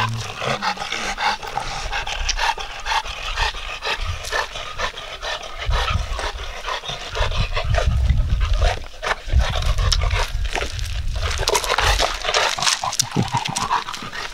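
Bullmastiff panting with quick, even breaths. A low rumble runs under it through the middle stretch.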